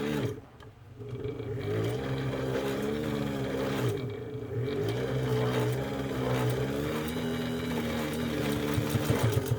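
Kenmore 117.552 straight-stitch sewing machine running and stitching through two layers of garment cowhide leather, starting about a second in, its motor speed rising and falling a little under the foot control.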